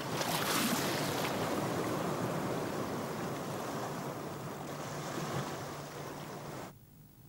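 Sea surf washing onto a rocky beach: a steady rush of breaking waves that swells about half a second in, slowly eases, then cuts off abruptly near the end.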